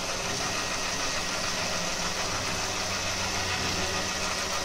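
Philips electric hand mixer on its stand with a rotating bowl, its motor running steadily with a low hum as the twin beaters churn cream that is turning into butter.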